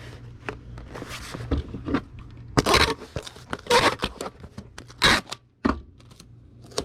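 Packing noise from a small cardboard shipping box being sealed: three short tearing bursts of packing tape pulled off the roll, about a second apart, among scraping and crinkling of cardboard and bubble wrap.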